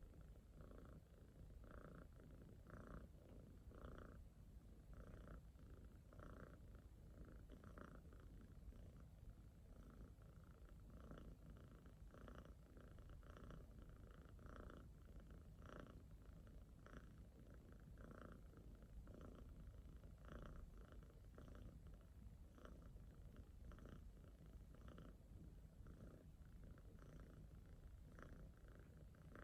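Domestic cat purring faintly and continuously while being stroked, the low rumble pulsing in a steady rhythm.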